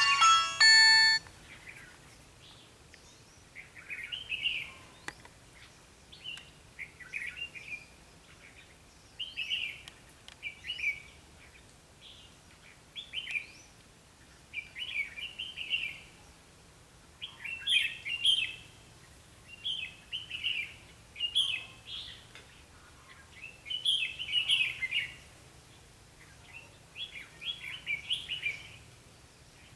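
A short burst of music stops about a second in. Then a red-whiskered bulbul sings in short, chirpy, warbled phrases, one every second or two.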